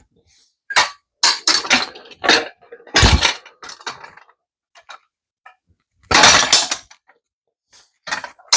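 Metal clanks and knocks from a Harbor Freight motorcycle bead breaker being set and worked against a dirt bike's rear wheel to break the tire bead. A heavier thump comes about three seconds in, and a longer, louder burst of noise about six seconds in.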